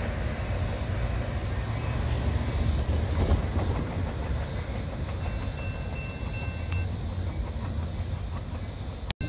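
A train running by on the tracks, a steady rumble with clatter from the wheels. A faint, high, steady tone rises above it for about a second and a half midway, and the sound cuts out abruptly near the end.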